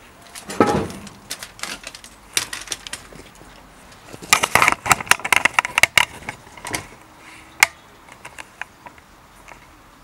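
Bicycle chain and drivetrain worked by hand to check the gear cable adjustment: scattered clicks, then a dense run of rapid clicking and ticking for about two seconds from about four seconds in, and one sharp click near the end.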